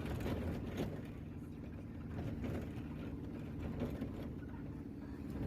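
A vehicle's engine running steadily, a low even hum.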